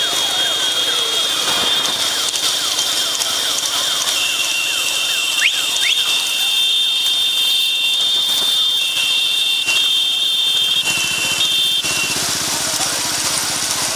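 Several long, steady, high-pitched whistle blasts overlapping over the dense noise of a race crowd, stopping about twelve seconds in. An engine starts running underneath about eleven seconds in.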